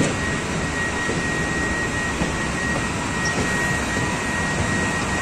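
Steady factory background roar in a beverage bottling plant's warehouse, with a thin steady high whine running through it.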